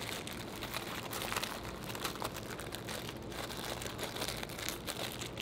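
Plastic wrapper of an Uncrustables sandwich crinkling continuously, with many small crackles, as it is squeezed and pushed into a snug fabric pouch.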